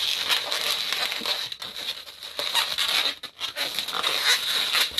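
Latex modelling balloons (260 size) rubbing and squeaking against each other and against the hands as one is wrapped around another, in a continuous, irregular stream of squeaks and rustles.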